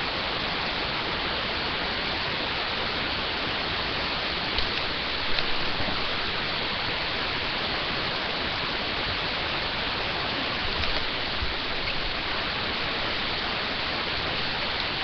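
Steady hiss from a low-quality webcam microphone, with a few faint knocks about five seconds in and again near eleven seconds.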